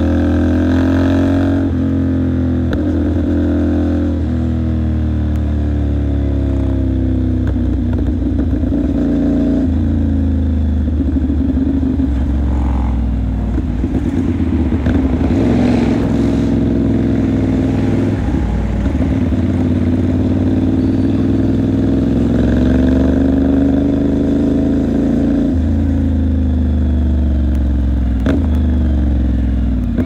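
CFMOTO 450SR's parallel-twin engine under way, its pitch climbing and then dropping back again and again as the rider rides through the gears.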